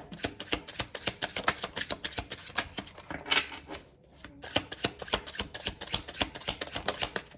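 A deck of tarot cards being shuffled by hand: a rapid run of card flicks, with a short pause about four seconds in before it starts again.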